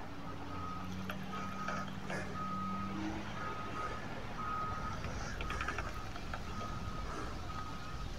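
A vehicle's reversing alarm beeping at one steady pitch, about once a second, with a low engine hum underneath that fades out about three seconds in.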